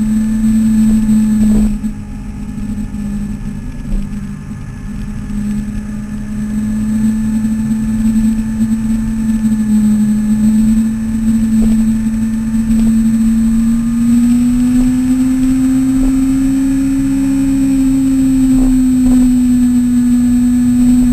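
Yamaha R6 sport bike's inline-four engine running at steady road revs, with wind noise. The note drops back a little about two seconds in, then climbs slightly over the second half as the bike pulls harder.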